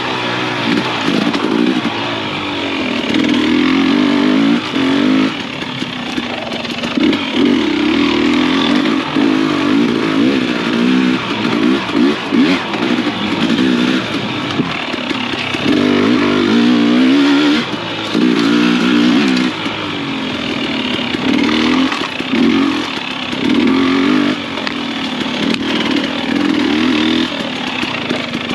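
Husqvarna TX300i two-stroke dirt bike engine revving up and down over and over, the throttle opened in short bursts of a second or two and shut between them as the bike picks its way along tight, technical singletrack.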